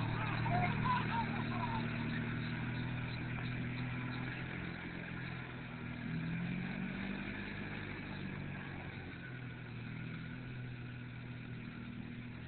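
EZ-GO golf cart engine running steadily as the cart drives away, slowly growing fainter; it picks up briefly about six seconds in.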